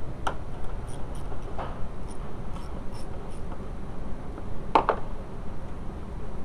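Hand-tool clicks from a ratchet with an extension being worked on 10 mm bolts, a few scattered light clicks, then two sharp metal clicks close together just under five seconds in.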